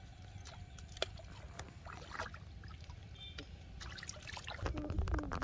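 Water trickling and splashing, with scattered light clicks and knocks; a person's voice starts near the end.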